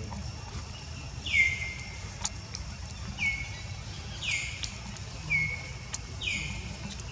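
A bird calling over and over, each short call dropping in pitch and then levelling off, about once a second, over a steady low rumble.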